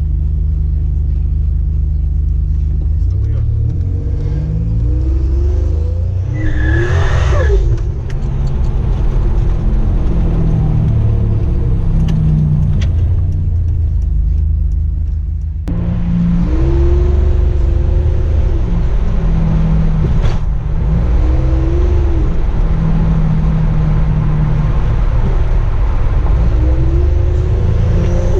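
Turbocharged 3.8-litre V6 of a 1987 Buick Grand National running under way, its pitch rising and falling as it pulls through the revs. A brief rising rush of air sounds about seven seconds in.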